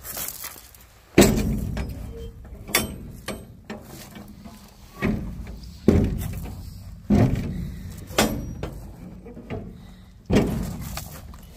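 A series of irregular thumps and knocks, roughly one every second, each with a short low rumble after it; the loudest comes about a second in.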